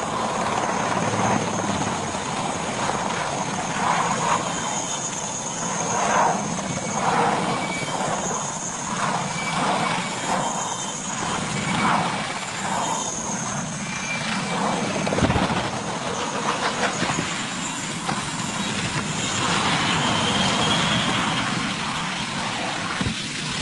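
Helicopter running, its rotor and engine noise steady, with a thin high turbine whine over it.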